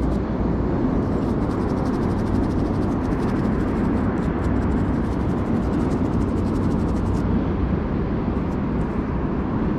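Toothbrush bristles scrubbing dirt off a small metal find, a rapid fine scratching that stops about seven seconds in. Under it runs a steady low rumble.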